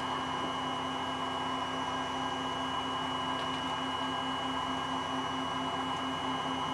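A steady background hum with a thin, constant high whine and a faint, even low pulsing, like a small machine or electrical equipment running. There are no distinct events.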